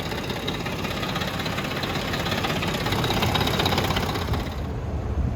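Ford 4.6 V8 engine running with a fast, steady rattle from the front of the engine, louder on the right side, which the mechanic traces to a broken guide on the timing chain tensioner in a sludged-up, poorly maintained engine. Near the end the higher part of the sound drops away, leaving a low rumble.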